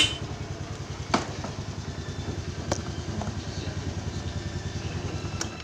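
Motorcycle engine idling with a fast, even putter. The tail of a short horn beep cuts off right at the start, and a few light clicks come during the idle.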